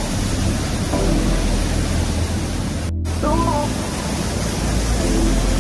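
Whitewater of a mountain torrent rushing through a narrow rock gorge, a steady loud rush. It breaks off for an instant about three seconds in.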